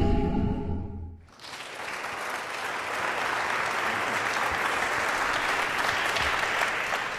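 The tail of a dramatic intro music sting, which cuts off about a second in, followed by an audience applauding steadily.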